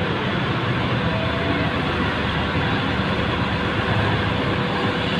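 Steady drone of heavy diesel cargo-handling machinery running at a port quay, with a faint steady whine over it.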